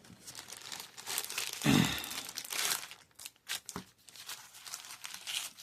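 Plastic packaging of a Yu-Gi-Oh card bundle crinkling and rustling as it is handled, in irregular crackles. Just under two seconds in, a short low voice sound falling in pitch stands out above it.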